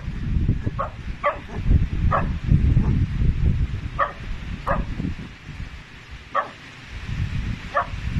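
Tibetan Mastiff puppy giving short, high yips, one every second or so with a couple of longer pauses, over a low rumbling noise.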